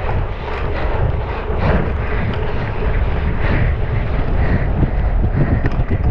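Wind rushing over the microphone with the steady rumble and scattered knocks of a cyclocross bike ridden fast over rough ground.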